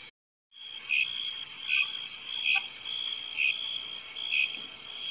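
Insect chirring sound effect: a steady high trill with louder pulses a little more often than once a second. It cuts out briefly near the start, then resumes.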